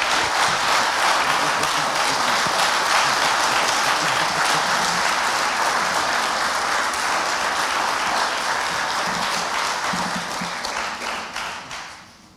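Audience applauding, a steady dense clapping that tapers off over the last couple of seconds.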